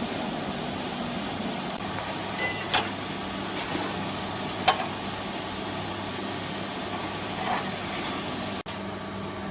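Hydraulic baling press running with a steady low hum from its power unit, with a few sharp metallic knocks, the loudest about halfway through.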